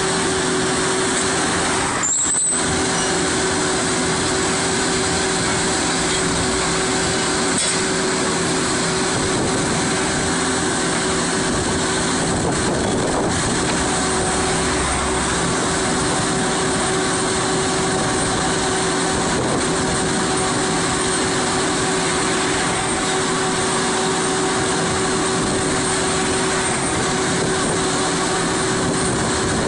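Vermeer Navigator horizontal directional drilling rig running steadily: its diesel engine and hydraulics give an even, unbroken drone with a steady whine.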